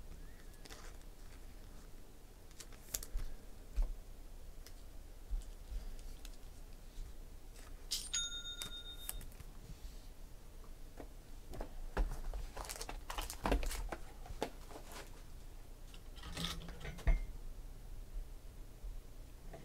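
A sealed trading-card box's wrapping torn open and its foil pack handled: irregular crinkling, tearing and light clicks, busiest in the second half. A brief electronic chime with a few steady tones sounds about eight seconds in.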